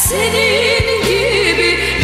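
Music: a solo singer's wavering melody over held chords.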